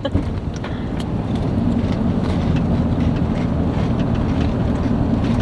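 Steady low hum of a 1998 Mitsubishi Delica van's engine running, heard from inside the cabin, growing a little louder over the first couple of seconds.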